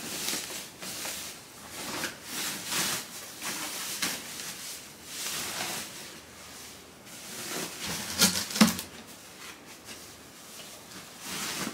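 Plastic bag wrapping crinkling and rustling as a heavy amplifier is slid out of it, with a couple of sharp knocks about eight seconds in, the loudest sounds.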